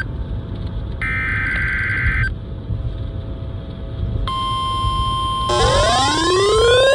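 NOAA Weather Radio Specific Area Message Encoding (SAME) test: a screechy digital data burst of about a second ends, and another follows after a short pause. About four seconds in, the steady 1050 Hz weather radio tone alert starts, and from about five and a half seconds repeated rising sweeping tones sound over it.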